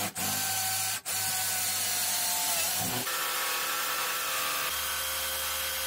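Electric jigsaw cutting a curve through a sheet of acrylic (plexiglass), running steadily. It cuts out for an instant twice in the first second, and its pitch shifts about three seconds in.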